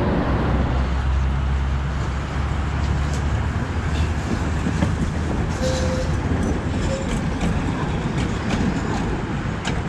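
Two-car tram running past on the rails with a deep rumble, its wheels clicking repeatedly over the track in the second half.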